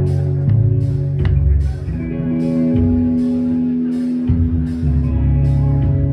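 Live band music: electric guitar and bass playing held chords and notes over a steady beat of about two strokes a second.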